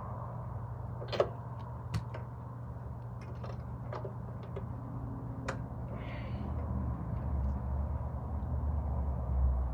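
Scattered metallic clicks and knocks of a snowblower engine being worked on by hand, with a short hiss about six seconds in, over a steady low hum; a low rumble grows near the end.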